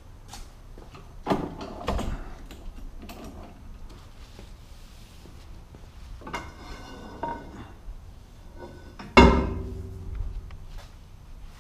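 Length of 2-inch square metal tubing knocking and clanking as it is handled: a couple of knocks in the first two seconds, a ringing stretch around the middle, and the loudest clank, with a ringing decay, about nine seconds in.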